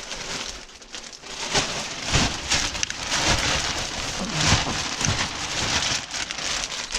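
Irregular crackling and crunching with many small knocks as debris and broken glass are shifted about.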